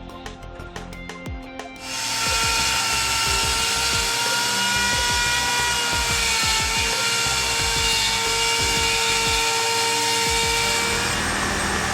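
An electric power tool starts about two seconds in and runs steadily with a high whine, dipping slightly in pitch midway, then stops near the end. Background music plays throughout.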